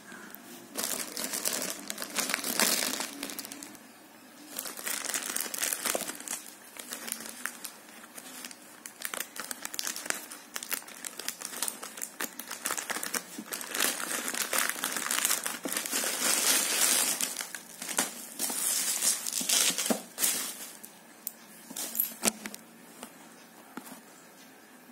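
Plastic courier mailer bag crinkling as it is handled and torn open by hand, then bubble wrap rustling. It comes in irregular bursts with short pauses, a few sharp clicks near the end, and it dies down in the last couple of seconds.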